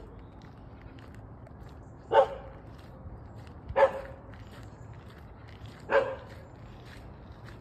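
A dog barking: three single barks, roughly two seconds apart, over faint steady background noise.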